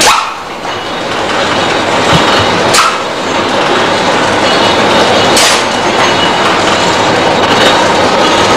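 Pneumatic chips-pouch packing machine running with a steady mechanical clatter. A short, sharp burst of noise comes about every two and a half seconds as the pneumatic sealing jaws cycle and one pouch is made.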